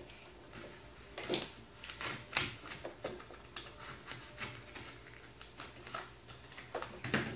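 Cardboard being cut by hand: a string of faint, irregular scrapes and clicks.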